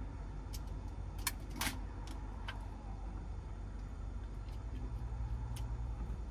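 Light clicks and taps of small items being handled at a cabinet while putting on makeup, a handful scattered through, the loudest pair about a second and a half in, over a steady low hum.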